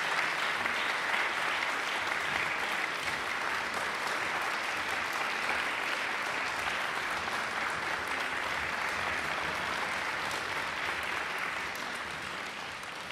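Audience applauding steadily: a dense patter of many hands clapping, easing slightly near the end.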